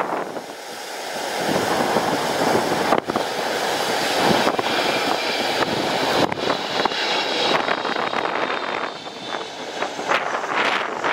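Strong gusty wind buffeting the microphone, with a jet airliner on landing approach passing; its engine whine falls in pitch during the second half.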